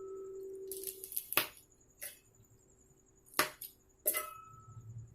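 Several sharp clicks and clinks, a few with a brief metallic ring: green chillies and other ingredients being dropped into a steel mixer-grinder jar and the jar being handled.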